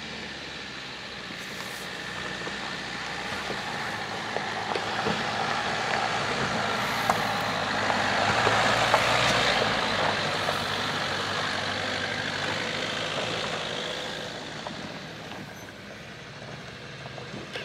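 Dacia Duster with snow chains on its rear wheels driving up a stony dirt track, its engine running under load over the crunch of chains and tyres on gravel. The sound builds to its loudest about eight to nine seconds in as the car passes close, then fades, with scattered clicks of stones and chain links.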